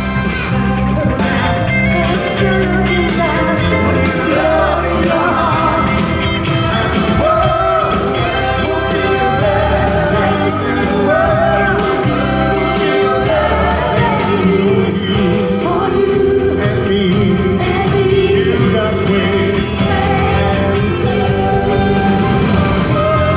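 Live pop-rock band performance played loud through a hall's sound system: a man and a woman singing in turn over an electric guitar and a steady bass line.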